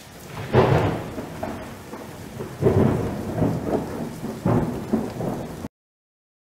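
Thunderstorm: three rolls of thunder over steady rain, the first about half a second in, then two more a couple of seconds apart. It cuts off suddenly near the end.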